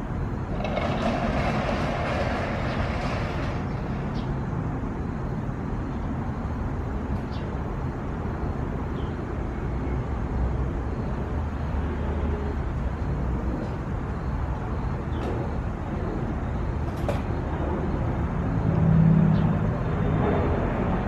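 Steady low outdoor background rumble, with a brief hissing swell in the first few seconds and a louder low swell near the end.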